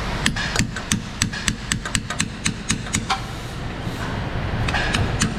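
Hammer tapping on metal in a steady run of sharp blows, about four a second. It stops a little past the middle and starts again near the end.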